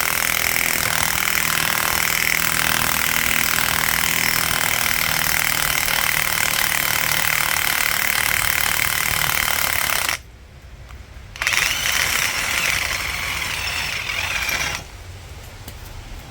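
Parkside PASSK 20-LI B2 cordless impact wrench hammering as it drives a wheel hub puller's screw to pull a wheel bearing. It runs for about ten seconds, stops briefly, then hammers again for about three seconds.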